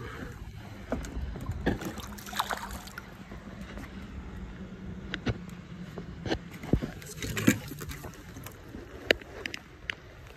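Light water splashing from a hooked Gila trout being played at the surface close in, with scattered sharp knocks and clicks of fishing gear being handled.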